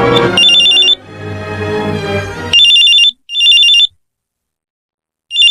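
A music bridge fading out, then a telephone ringing in a double-ring pattern: two short trilling rings about two and a half seconds in, a pause, and the next pair of rings starting near the end.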